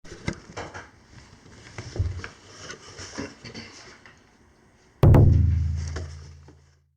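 Scattered light clicks and rustles, then about five seconds in a sudden deep boom that rings and fades away over about two seconds, an edited intro sound effect.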